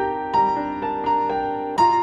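Classical music: a melody of separate ringing notes on a keyboard instrument, each note struck and fading before the next.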